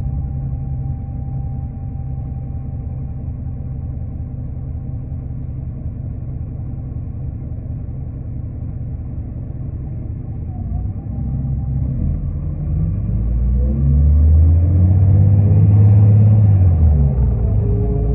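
Interior sound of a 2005 New Flyer D40LF diesel transit bus: a steady low engine and road rumble. About twelve seconds in, the engine note rises in pitch and grows louder as the bus accelerates. Near the end the pitch falls back once, then climbs again.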